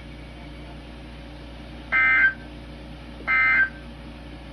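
NOAA Weather Radio SAME end-of-message data bursts: two short, identical bursts of buzzing two-tone digital data about a second and a half apart, signalling the end of the alert message.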